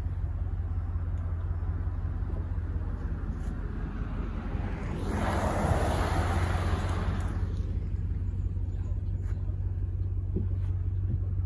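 Vehicle engine running with a steady low hum. About five seconds in, a rushing noise swells for about two seconds and then fades.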